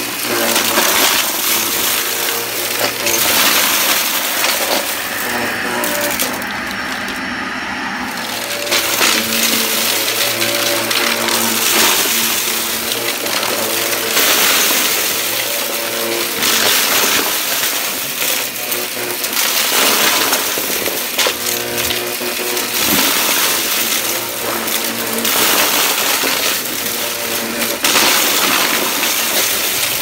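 Shark upright vacuum running and sucking up small hard debris such as bottle caps and beads off cardboard, the pieces rattling and clattering up the nozzle over the steady motor hum. The clatter eases for a couple of seconds about five seconds in.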